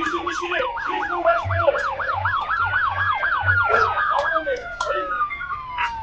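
Police car sirens: one yelping rapidly up and down, about four times a second, over a slower rising and falling wail. The wail winds down in pitch near the end.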